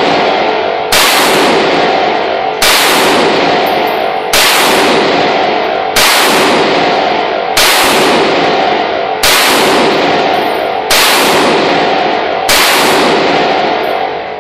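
Music: a heavy chord struck about every second and a half, eight times, each one ringing on until the next.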